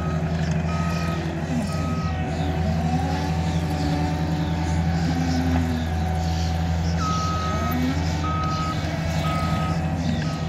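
Cat 299D3 compact track loader's diesel engine running under load, its pitch rising and falling as it works the ground. Its reversing alarm beeps about once a second as it backs up, for the first couple of seconds and again from about seven seconds in.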